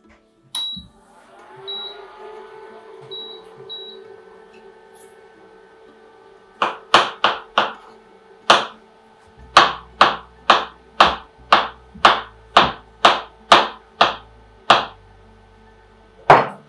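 Kitchen knife slicing mushrooms on a cutting board: sharp knocks of the blade on the board, a few at first, then a steady run of about two a second, and one last knock near the end.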